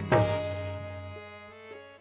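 Qawwali accompaniment: a loud tabla stroke right at the start, then harmonium notes held and slowly fading, the melody stepping to new notes a couple of times.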